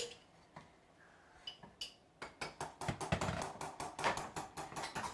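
Two light metal clinks, then from about two seconds in a quick, busy run of clicking and scraping: a spoon stirring broccoli in a cooking pot.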